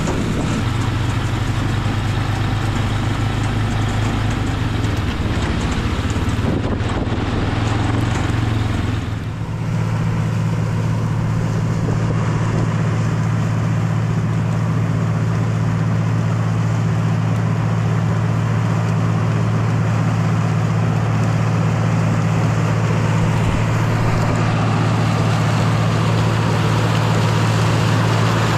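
Tractor engine running steadily while working a mounted two-row corn picker, a low, even drone that shifts briefly about nine seconds in.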